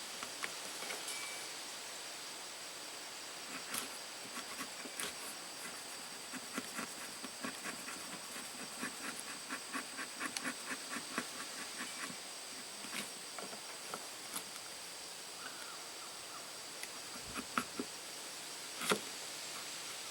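Leatherman Sidekick's short chisel-point blade carving well-seasoned maple: a run of short, quiet scraping cuts, about two or three a second, as chips are pried out, then a few scattered single cuts. A steady faint hiss with a thin high tone lies underneath.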